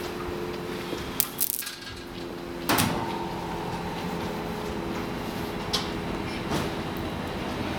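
DB electric locomotive humming as it eases up to the coaches, with a loud clang about two and a half seconds in as its buffers meet the coach's, followed by a steady higher tone and a couple of sharp clicks.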